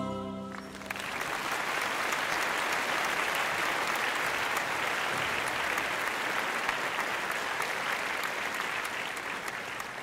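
An audience applauding steadily after the final chord of the music dies away about a second in; the clapping thins out near the end.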